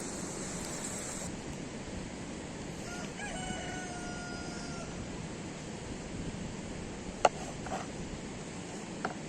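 A rooster crowing once about three seconds in: a short rise into a long held note lasting nearly two seconds. A steady background hiss runs underneath, with a few sharp clicks near the end.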